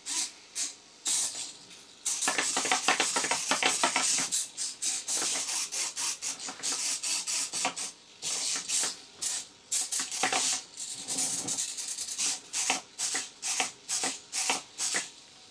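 Six cheap 9g analog hobby servos in a small 3D-printed robot dog buzzing and chattering in quick bursts as it runs a programmed stepping and squatting routine, with its feet clicking on a wooden tabletop. A few short bursts come first, then the noise runs almost without pause from about two seconds in.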